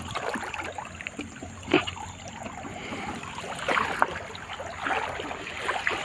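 Shallow water splashing and sloshing in irregular bursts, with a sharper splash about two seconds in and a few more near the middle.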